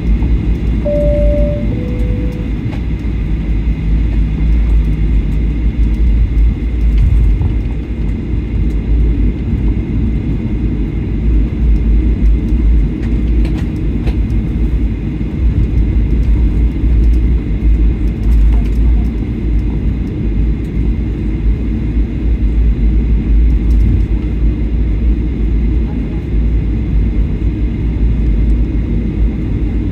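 Cabin noise inside a Boeing 737-800 taxiing: a steady low rumble of the engines at taxi power and the wheels rolling on the taxiway. About a second in, a two-note chime sounds, high then low.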